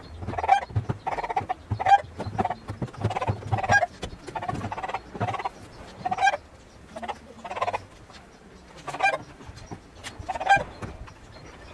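Chickens clucking, many short calls repeated through the whole stretch, with some knocking and scraping underneath during the first few seconds.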